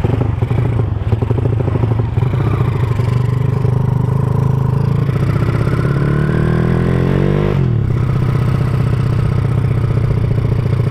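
Honda Supra underbone motorcycle engine, built to 200cc and breathing through a CJDW aftermarket exhaust, running loud while riding. The engine note climbs steadily for a couple of seconds around the middle, then drops suddenly and settles back to a steady run.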